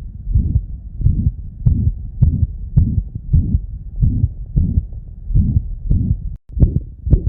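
A dog's heart heard through a stethoscope, about two beats a second, each beat carrying a murmur of myxomatous mitral valve disease (endocardiosis), the sign of blood leaking back through the mitral valve. The sound drops out for an instant a little past six seconds in, then the beats carry on.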